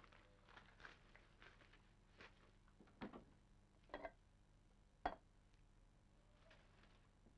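Faint clinks and knocks of crockery and tins being handled and moved on a kitchen shelf, with three sharper knocks about a second apart, the last the loudest.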